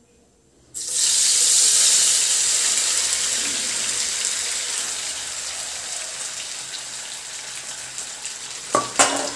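Turmeric-and-chilli-coated potato strips hit hot oil in a frying pan, setting off a loud sizzle about a second in. The sizzle gradually settles into steady frying. Near the end there are a couple of sharp knocks.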